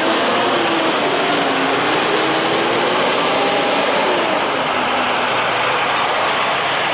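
Diesel semi-trucks hauling shipping containers driving past close by: a steady mix of engine and tyre noise, with faint shifts in engine pitch.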